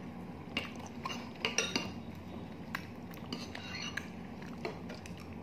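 Metal spoon and fork clinking and scraping against a plate while eating, with light clinks every half second to a second or so.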